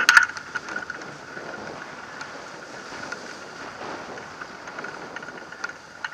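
Wind buffeting the microphone and water rushing along the hull of a J-22 sailboat moving at speed through choppy water. Sharp knocks and ticks sound through it, the loudest burst right at the start.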